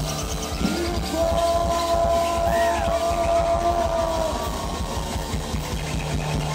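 Live band music played loud through the stage sound system: a steady drum beat and bass, with long held melodic notes over it in the middle stretch.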